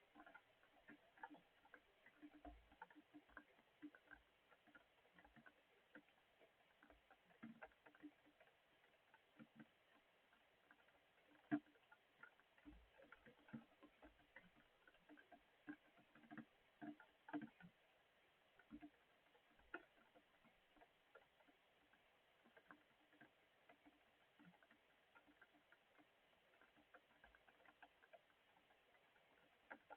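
Faint rain: scattered raindrops ticking and pattering at an irregular pace, with one louder drop about a third of the way in.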